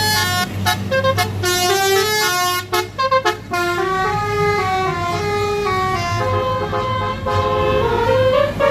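A bus's basuri 'telolet' musical horn, sounded through a set of twelve roof-mounted trumpets, playing a melody. It goes in quick short notes with brief gaps for the first few seconds, then in longer held notes, over the steady hum of the bus's engine running.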